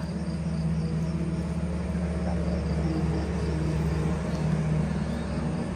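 An engine running steadily with an even low hum.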